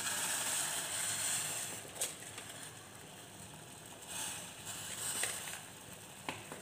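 Water in a steel pot on a gas stove simmering with green tea leaves just added. It hisses strongly for the first couple of seconds, eases off, then swells again, with a few light clicks.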